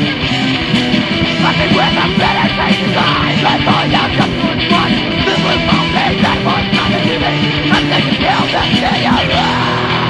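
Hardcore punk song: distorted electric guitars and drums played loud and steady, with shouted vocals coming in about a second and a half in.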